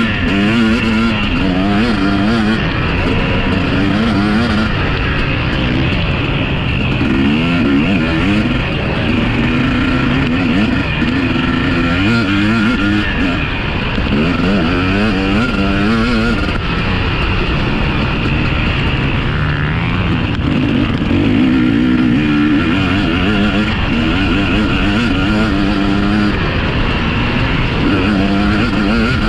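Several motocross bikes running together, their engine notes repeatedly rising and falling as the riders rev through the gears. The overlapping engines make a continuous loud din.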